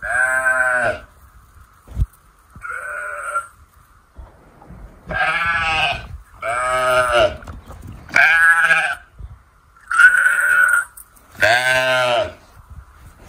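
Sheep bleating again and again: about seven loud, drawn-out bleats, each just under a second long, one every one to two seconds.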